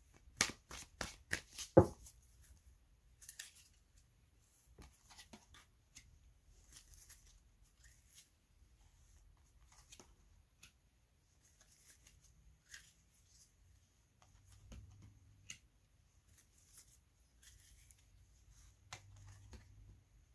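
A hand tapping a deck of cards in a quick even run of about five taps a second for the first two seconds, the last tap the loudest. Then quiet overhand shuffling of the deck, with soft rustles and scattered clicks of single cards being laid down on a cloth mat.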